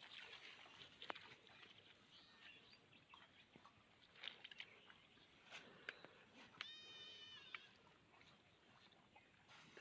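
Faint scattered clicks and ticks, with one animal call about seven seconds in, held steady for about a second.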